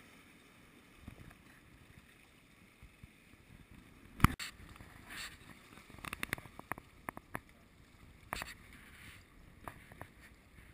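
Scattered knocks and clicks from people moving about with fishing gear, with one sharp knock about four seconds in and a quick run of clicks a couple of seconds later, over a faint steady hiss.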